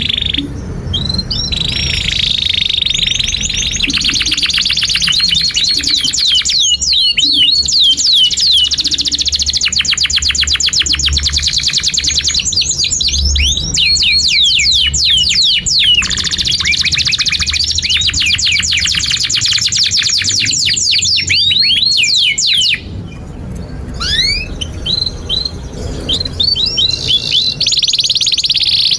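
Domestic canary singing a long, loud song of fast trills and rapidly repeated high notes, breaking off briefly about three-quarters of the way through and then starting again.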